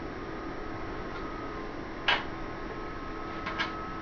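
Computer case fans (120 mm) running steadily, a whirring hiss with a faint steady whine. A sharp click about two seconds in and two quick clicks near the end.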